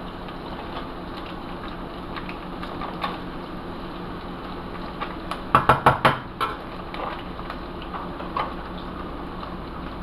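Kitchen handling sounds as a foil-wrapped block of cream cheese is scraped with a metal spoon into a stainless steel skillet: a quick cluster of crinkles and clicks a little past the middle, over a steady low hum.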